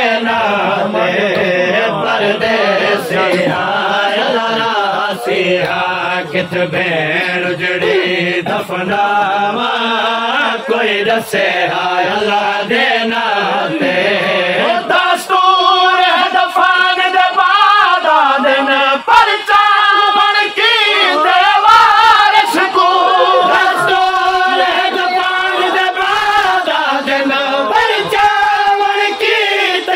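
Male voices chanting a noha, a Shia mourning lament, with the crowd joining in. About halfway through, the singing moves higher and becomes clearer.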